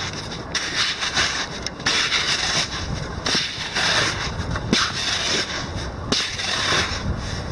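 Perforated metal sand scoop digging into wet beach sand and being shaken, the sand scraping and hissing through the scoop's mesh in repeated bursts.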